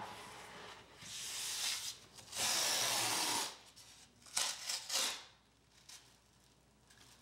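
Green painter's tape being pulled off the roll and rubbed down along a baseboard by hand: a series of rasps, the longest and loudest about halfway through, with two short ones soon after.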